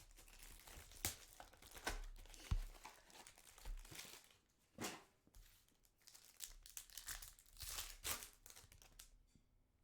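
Crinkling and tearing of trading-card packaging, a box of Topps Chrome cards being opened and a pack torn open by hand, in irregular rustles that die away near the end.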